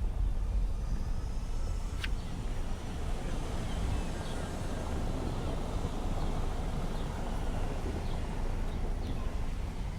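Wind buffeting the microphone over steady outdoor noise, with a single sharp click about two seconds in.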